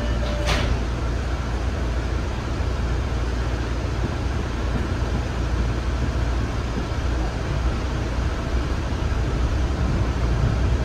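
Interior of a new MBTA Orange Line subway car: a steady low rumble and hum with a short hiss about half a second in. It grows a little louder near the end as the train starts to pull away.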